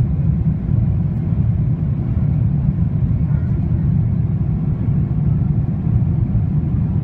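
Steady low rumble of engine and airflow noise inside a Boeing 777-300ER's passenger cabin on final approach.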